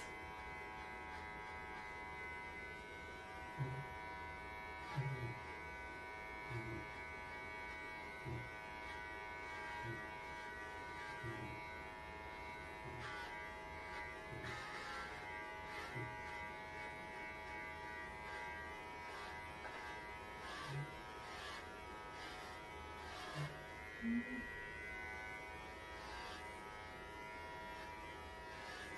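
Electric pet clippers running with a steady buzzing hum as they shave a Pembroke Welsh corgi's coat down short around its face. A dozen or so short low thumps come at uneven intervals over the hum.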